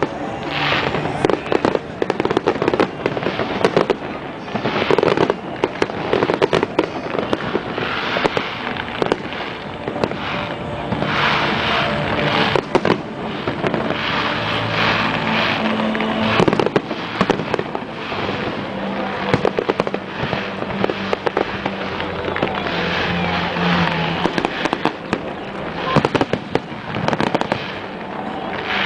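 A fireworks display: aerial shells bursting in a steady run of bangs and crackles, many close together, with no break.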